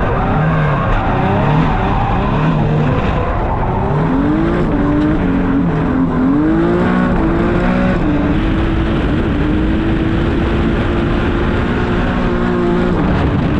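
Twin-turbo Nissan 370Z's 3.7-litre V6 heard from inside the cabin while drifting, revving up and down through the first half, then held at high, fairly steady revs. The tires squeal and scrub underneath it throughout.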